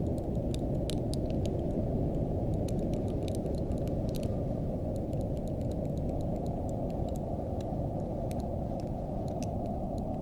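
Steady low wind noise, with faint scattered crackles and ticks of a frost or freezing effect over it.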